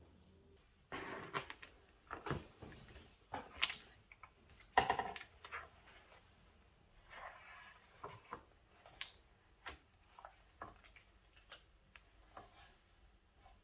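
Objects being handled indoors: a series of irregular light knocks and clicks, a few louder ones about one, three and a half and five seconds in with a brief ring, then lighter, sparser clicks.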